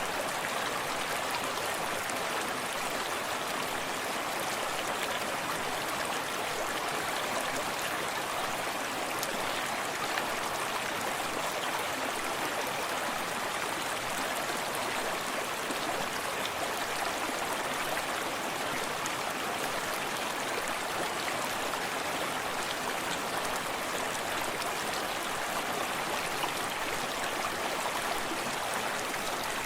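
A forest stream running steadily over rocks, a constant rushing with close splashing and no change over the whole stretch.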